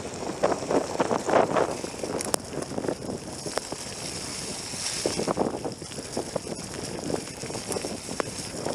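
Wind buffeting a camera microphone on a moving mountain bike, with rough surging noise and occasional sharp clicks and rattles from the bike on the trail.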